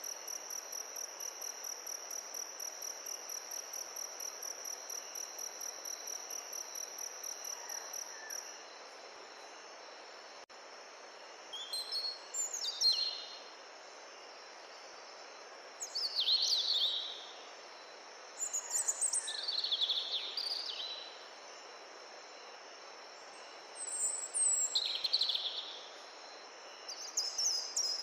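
An insect trills steadily in fast, even pulses, then stops about a third of the way in. After that a bird sings short phrases every few seconds, over a steady background hiss.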